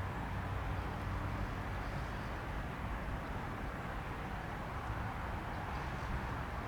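Steady hum and rush of a Dassault Falcon 2000EX's twin turbofans running at low power, heard from a distance.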